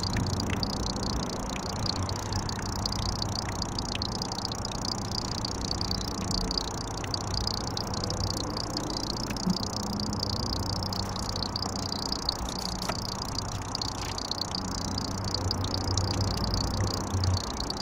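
Water dripping steadily, with a constant high chirping and a low hum behind it.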